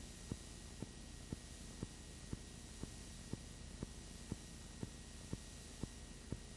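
Steady tape-like hiss and low hum with a sharp click about twice a second at a perfectly even rate: background noise with no live sound, typical of a transferred silent home movie.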